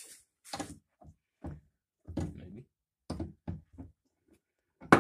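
Short, irregular knocks and clunks, about seven, from a bench vise being loosened and a small ball peen hammer being taken out of it; the loudest knock comes at the very end.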